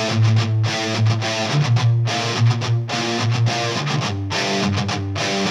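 Background rock music led by electric guitar, with a steady beat.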